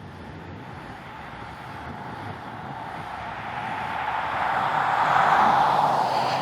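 A vehicle passing by: a steady rushing noise that swells to a peak about five seconds in and then fades.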